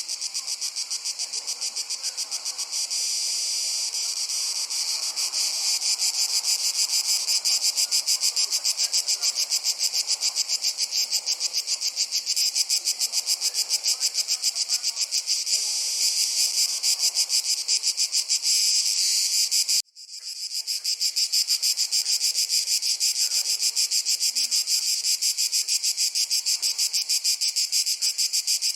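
Dense chorus of summer insects: a high, rapid, pulsing trill that drops out suddenly about two-thirds of the way through and fades straight back in.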